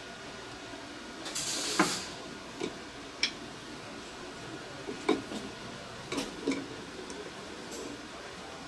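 Scattered metal clinks and taps as an adjustable wrench and the steel fittings of hydraulic hoses are handled and tightened. A short scraping rustle ending in a knock comes about a second and a half in and is the loudest sound.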